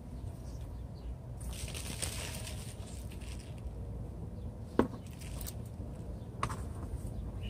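Rustling and crinkling of long strap-shaped leaves against a plastic pot as gloved hands lift the plant out. A sharp click comes a little after the middle, and a smaller one follows about two seconds later.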